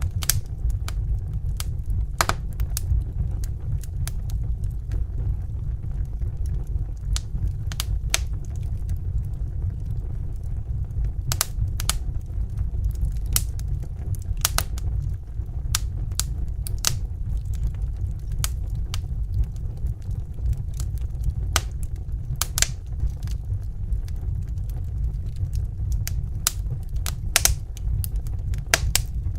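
Wood fire crackling in a fireplace: irregular sharp pops and snaps over a steady low rumble of the burning.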